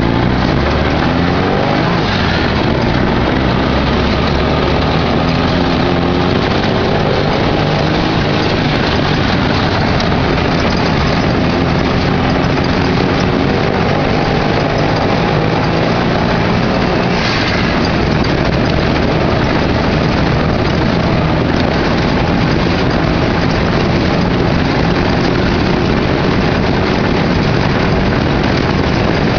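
Off-road vehicle's engine running while driving over a rough dirt trail, heard from inside the cab, its pitch rising and falling with the throttle.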